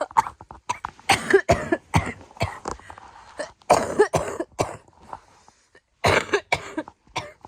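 A woman coughing hard and repeatedly, in three bouts of several coughs each, a sign of a chest cold.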